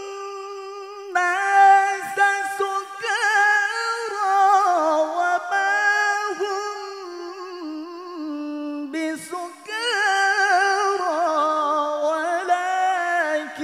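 A male reciter chanting the Qur'an through a microphone in the melodic tilawah style: long held notes with wavering, ornamented turns, with a short breath break about nine seconds in before the next phrase begins.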